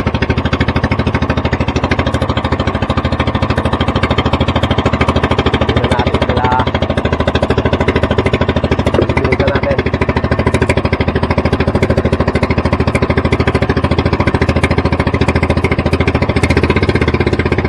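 Engine of a small outrigger fishing boat running steadily under way while trolling, a fast, even throb.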